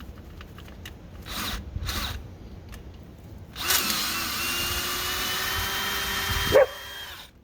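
Electric drill boring a pilot hole in steel that is to be opened up with larger bits and then tapped. A few light knocks come first; about three and a half seconds in, the drill runs steadily for about three seconds, then stops abruptly.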